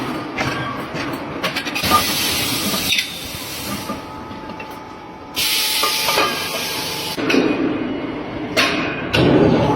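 Several bursts of hissing, each lasting one to two seconds, with scattered clicks and knocks between them.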